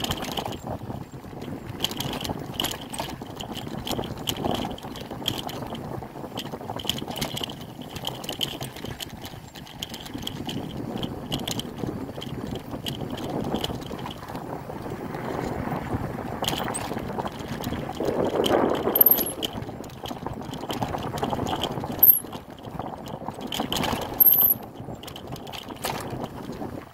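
Bicycle ridden over a dirt trail: tyre rumble on the ground with the frame and handlebar rattling and clicking over bumps, including a stretch across a wooden boardwalk. Sharp knocks stand out twice near the end.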